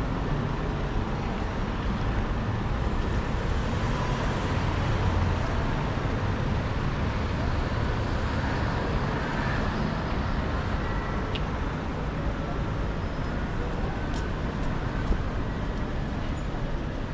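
Steady city street traffic noise: a continuous low rumble of passing motor vehicles.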